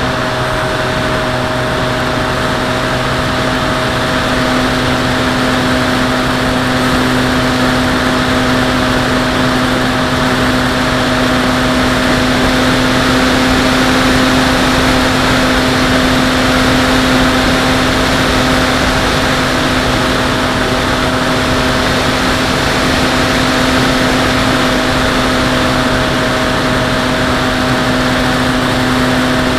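Skyhunter RC plane's motor and propeller running steadily in flight, heard from the camera mounted on the plane: a constant hum over a broad rush of air noise.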